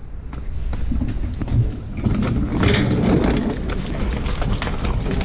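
Wheeled oil drain caddy rolled across a concrete floor: a low rumble of its casters with many small knocks and rattles, getting louder over the first couple of seconds.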